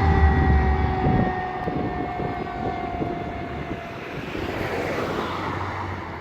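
Fire engine siren and engine passing and moving away: the siren's steady tone slowly sinks in pitch and fades out about four seconds in, while the low engine rumble drops away after about a second.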